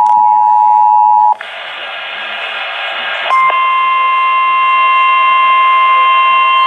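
The two-note Emergency Alert System attention tone holds steady and cuts off about a second in. A couple of seconds of radio static follow. Then a single steady, slightly distorted alert tone, the 1050 Hz warning alarm used by NOAA Weather Radio, starts about three seconds in and holds.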